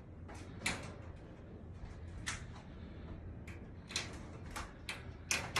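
Handling noise from a hand-held phone: a low steady rumble with about half a dozen faint, scattered clicks and taps.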